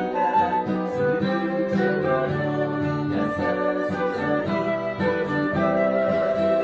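Instrumental music: a plucked guitar accompaniment under sustained, held melody notes, playing steadily.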